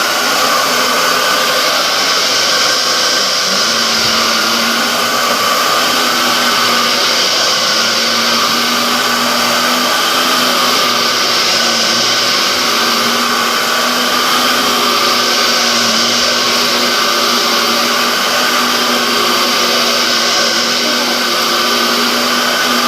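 Dyson DC07 bagless upright vacuum cleaner running steadily while vacuuming the floor: an even motor whine with high tones over a rush of airflow.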